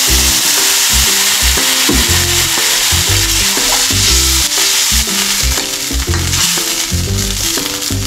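Chopped vegetables sizzling in hot oil in a pan as water is poured in. Background music with a steady beat plays throughout.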